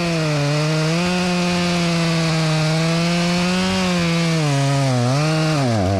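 A Stihl chainsaw runs at full throttle, cutting into a silver maple trunk to make the back cut of a hinge cut. Its steady high engine note sags and recovers twice near the end as the saw bogs in the wood. The saw is nearly out of fuel and dies within a couple of seconds.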